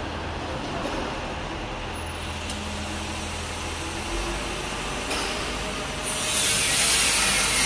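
Steady workshop background noise with a low hum, and a hiss that grows louder about six seconds in.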